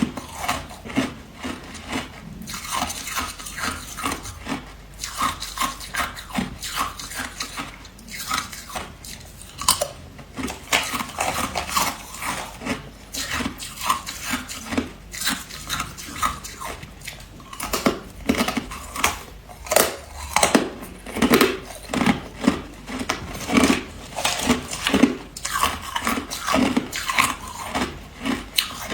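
Ice being bitten and chewed close to the microphone: a steady run of sharp crunches, a few a second.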